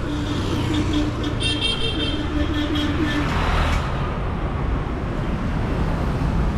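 Street traffic: a steady low engine rumble, with a vehicle passing about three and a half seconds in. A brief high-pitched sound comes about a second and a half in.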